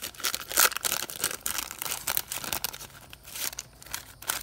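The paper wrapper of a 1989 NBA Hoops basketball card pack being torn open and crinkled by hand. It makes a dense run of crackles and rips that thins out near the end.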